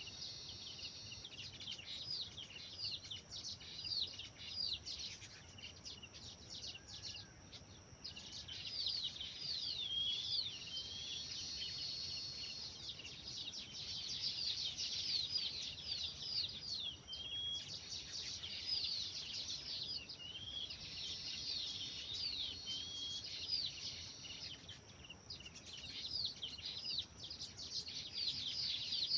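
Several small songbirds chirping and singing together in a dense chorus of quick, high, downward-sweeping notes, with short lulls between bursts of song.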